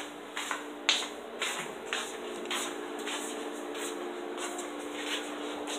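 Footsteps on a wooden floor, soft and even at about two steps a second, over a steady low hum.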